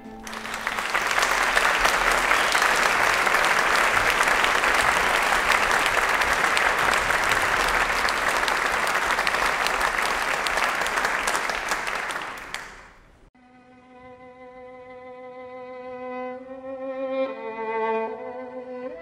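Theatre audience applauding steadily for about thirteen seconds, then cut off. A violin then starts quietly, playing slow held notes that grow louder toward the end.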